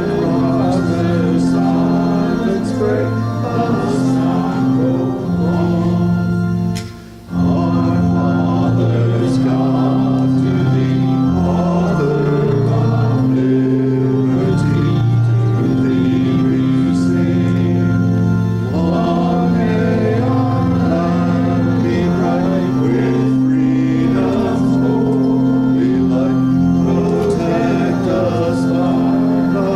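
Organ playing slow, sustained chords, with one brief break about seven seconds in before it goes on.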